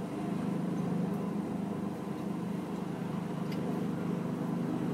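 Helicopter on a deck with its rotor turning, heard from behind glass as a steady low drone.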